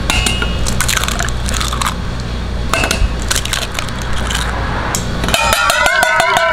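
Eggs knocked and cracked on the rim of a stainless steel bowl, a few sharp taps in small groups. About five seconds in, rapid beating of the eggs in the bowl starts: fast, even clicks with the steel bowl ringing. A steady low hum runs underneath.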